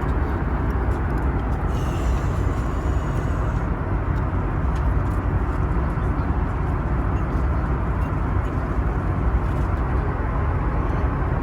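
Jet airliner cabin noise in flight: a steady, dense low rumble of engines and rushing air.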